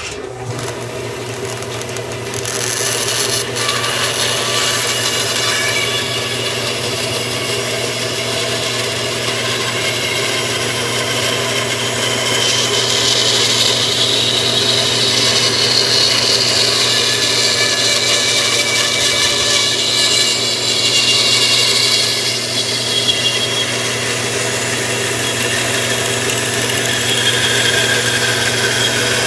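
Floor-standing bandsaw starting up suddenly and running with a steady motor hum. From a few seconds in, the blade is cutting through a thick wooden block to rough out spoon blanks, a continuous rasping saw noise over the hum.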